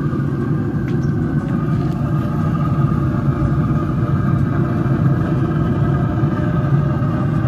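Pit Boss 700FB wood pellet grill running with its lid open, a steady fan hum and rumble.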